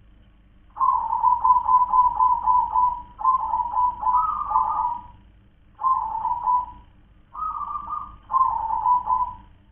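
Zebra dove (perkutut) singing its staccato cooing song: a long run of quick, evenly spaced coos starting about a second in, then three shorter phrases.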